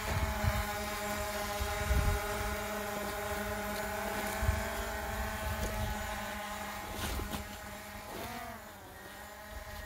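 DJI Mavic Air 2 quadcopter hovering, its propellers giving a steady multi-tone hum that dips briefly in pitch and recovers about eight seconds in as the drone adjusts. Wind buffets the microphone throughout, with low thumps.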